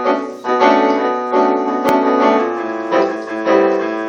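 Piano playing a slow introduction of sustained chords, with a new chord struck every half second to a second. A brief sharp click sounds about two seconds in.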